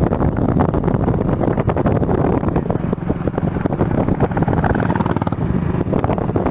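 Royal Enfield Bullet's single-cylinder engine running steadily at riding speed, with a rapid, even exhaust beat and wind rushing on the microphone.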